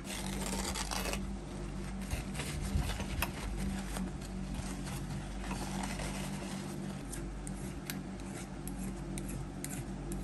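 Workbench handling sounds: paper towel rustling and small clicks as a two-stroke piston is wrapped and held, then the light scrape of a small file on the aluminium piston, smoothing the high spots of four-corner scoring. A steady low hum runs underneath.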